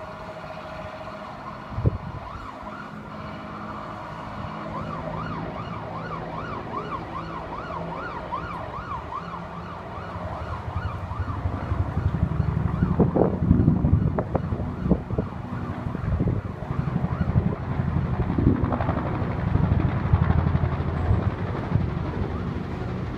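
An emergency vehicle siren wails up and down about twice a second, then fades. From about halfway a helicopter's low, pulsing rotor sound grows loud and takes over.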